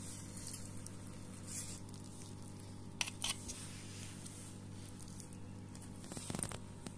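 Faint wet squishing of hands working stuffing into a pocket in a raw lamb breast and pinching the meat closed, with two sharp clicks about three seconds in and a short burst of handling noise near the end, over a steady low hum.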